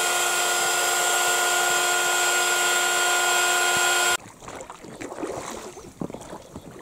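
Electric air pump running steadily as it inflates an inflatable boat, a constant whine over a hiss of air. It cuts off abruptly about four seconds in, leaving faint scattered small knocks and rustles.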